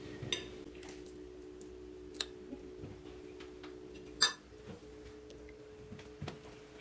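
A metal spoon scraping and clinking against a glass mixing bowl while scooping potato filling, a few light taps with the loudest about four seconds in. A steady low hum runs underneath.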